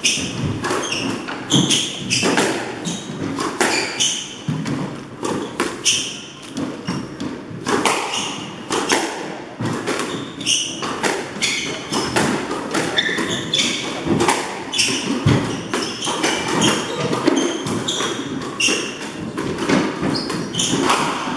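Squash rally: the ball smacking off rackets and the court walls in quick, irregular knocks. Players' shoes squeak sharply and thud on the wooden floor, echoing in the enclosed court.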